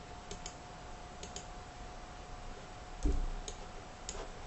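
Clicks from working a computer mouse and keyboard, several coming in quick pairs, with one duller, louder knock about three seconds in, over a faint steady hum.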